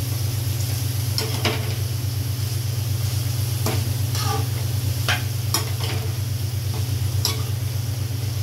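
A long steel spoon stirs and tosses shredded cabbage, carrot and capsicum as they sizzle in an oiled metal kadhai. The spoon scrapes or clinks against the pan about every second, irregularly, over a steady low hum.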